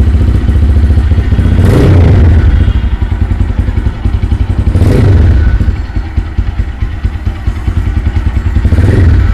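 Taro GP One V1 motorcycle engine idling and blipped with the throttle three times, the last near the end. The revs have a slightly cracked, rough edge, which the owner puts down to the freshly poured Liqui Moly 10W40 semi-synthetic oil; it ran smoother on mineral oil.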